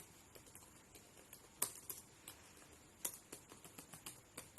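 Computer keyboard keys clicking faintly and irregularly as someone types. One harder keystroke comes about one and a half seconds in, and a quicker run of keystrokes follows in the second half.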